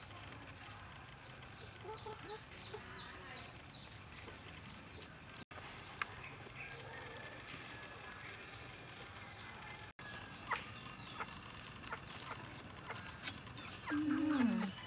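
Village yard ambience with chickens clucking and a high short chirp repeating about twice a second. Near the end there is a short falling 'mmm' from a person eating.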